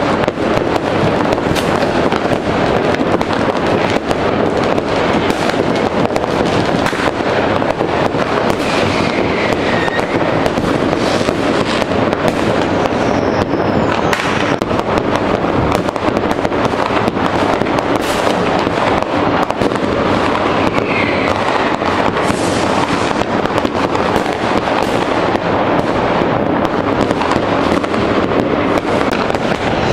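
New Year's Eve fireworks going off all around in a continuous din of bangs and crackling, with a few whistles gliding in pitch.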